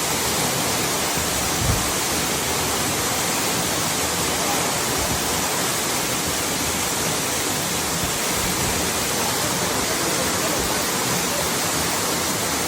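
Waterfall: a steady rush of falling water, with one brief low bump about two seconds in.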